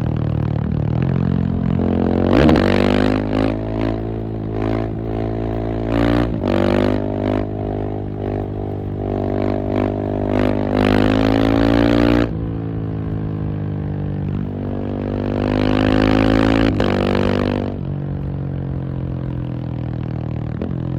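The single-cylinder engine of a KTM 690 SMC R supermoto being ridden, revving up and down through the gears. It rises in pitch over several seconds, then drops sharply about twelve seconds in. It climbs again briefly and falls off near the end.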